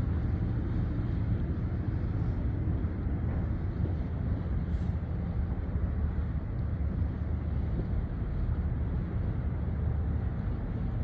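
Steady low rumble of ship engines running as a large vessel gets under way, with wind buffeting the microphone.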